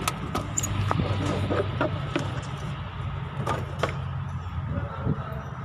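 A steady low mechanical hum with scattered clicks and light knocks.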